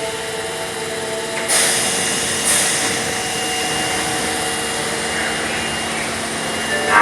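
Osaka Metro Tanimachi Line subway train with a steady electrical hum and whine. Two sudden hissing bursts come about a second and a half and two and a half seconds in.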